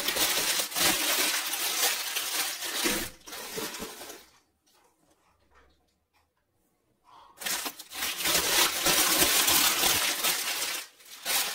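Packaging crinkling and small clay pieces clinking as items are unwrapped and handled, in two stretches with a pause of about three seconds between them.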